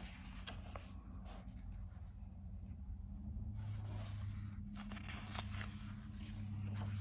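A glossy magazine page being turned by hand, a soft paper rustle near the start, followed by light handling of the pages. A low steady hum sits underneath, growing stronger about a third of the way in.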